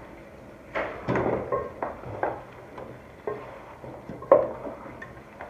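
Cooking spoon knocking and scraping against a pot as the chicken stew is stirred: a handful of irregular clatters, the loudest a sharp knock about four seconds in.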